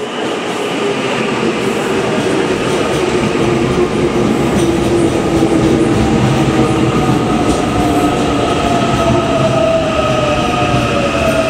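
An Auckland AM class electric multiple unit pulls into the platform and slows. Its electric drive whines with slowly falling pitch over a steady rumble of wheels on rail.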